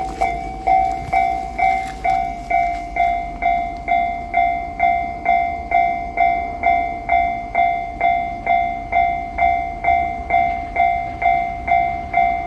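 Japanese railway crossing alarm ringing steadily: a two-tone electronic clang repeated a little over twice a second. For about the first three seconds a passing train's rumble and wheel clicks run under it, then die away, leaving the bell on its own.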